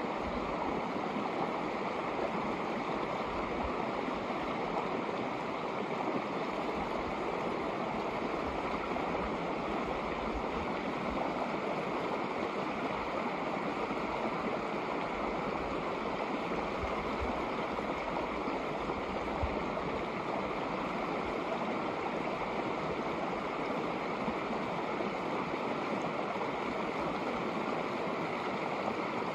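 Shallow snowmelt creek flowing over rocks: a steady, even sound of running water.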